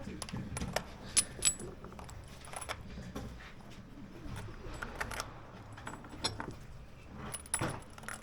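Scattered light metallic clinks and taps of gear being handled, the two sharpest about a second and a second and a half in.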